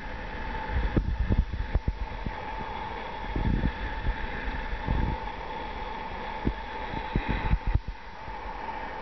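Camera handling noise: irregular low thumps and rumble under a steady, faint hum.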